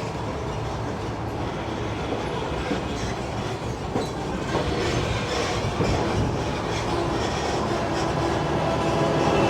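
Disneyland tram moving, heard from on board: a steady rumble of the tractor and its tyres, with the rattle of the open tram cars and a few knocks. It grows louder near the end.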